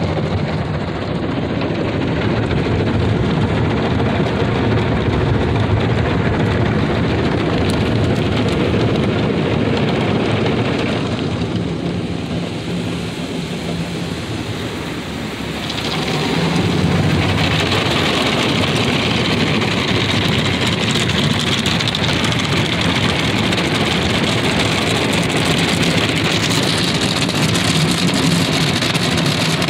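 Ryko Softgloss Maxx automatic car wash running over the truck, heard from inside the cab as a steady rush of water spray and washing. It dips a little past a third of the way in, then comes back louder and brighter.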